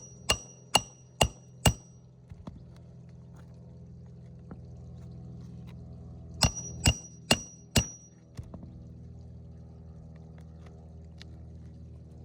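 Hammer driving roofing nails into an asphalt shingle, metal-on-metal strikes with a short ring. There are two runs of four quick blows, about half a second apart, over a steady low hum.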